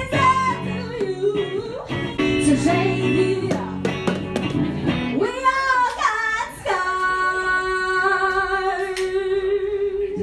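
A woman sings live over guitar and a hand drum. About halfway through the accompaniment falls away and she holds one long, wavering note.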